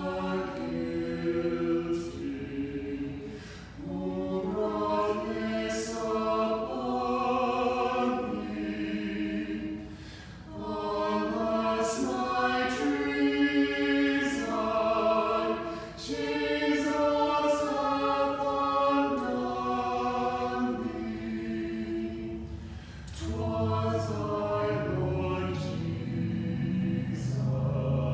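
Small choir of six singing unaccompanied, in phrases with short breaks between them. Lower voices come in strongly near the end.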